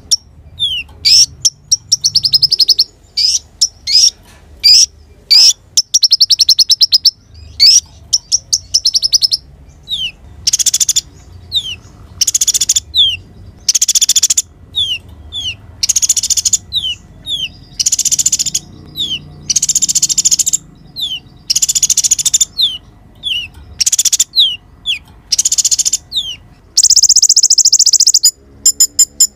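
Sunbird song, the konin type that Indonesian bird keepers play as a lure: quick high chip notes that slide downward, alternating with loud rapid trills under a second long, which come about every two seconds in the second half, with a longer trill near the end.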